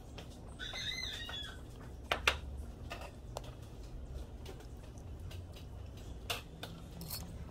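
Faint eating sounds as a boiled egg is eaten off a spoon: soft chewing with a few sharp clicks of the metal spoon and cutlery. A short, high call sounds about a second in.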